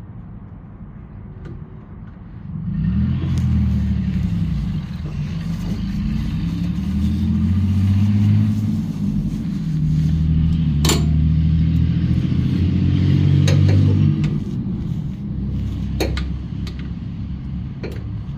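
A motor vehicle engine running loud and low, its pitch wandering up and down, starting about three seconds in and easing off near the end, with a few sharp clicks over it.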